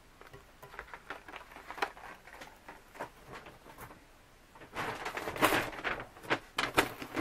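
Light handling clicks, then about five seconds in a plastic bag rustling and crinkling loudly as it is rummaged through.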